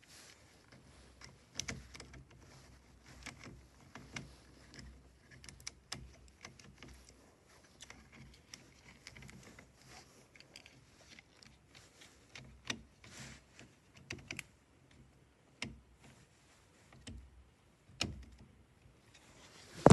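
Irregular plastic clicks, taps and small rattles from handling and working on a car power window switch assembly, with a louder click near the end.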